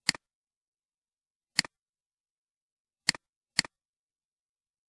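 Four computer mouse clicks, each a quick press-and-release tick: one, another about a second and a half later, then two more half a second apart.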